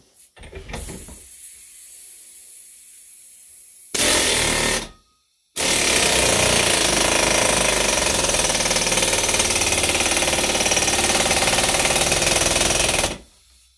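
Pneumatic air gun hammering as it drives a Lisle 34400 exhaust pipe expander to stretch the end of a steel exhaust pipe: a short burst about four seconds in, a brief pause, then a long run of about seven and a half seconds. A quieter steady hiss comes before it.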